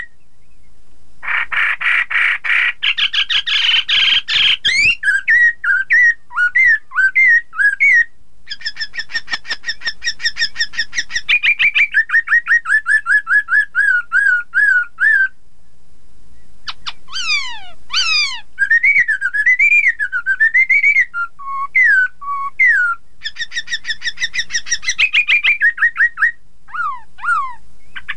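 Laughingthrush (poksay) singing: a loud, varied run of whistles with fast series of repeated notes, rising-and-falling swoops and downward-sliding whistles. A harsh rasping stretch comes about a second in and lasts several seconds, and there are short breaks between phrases.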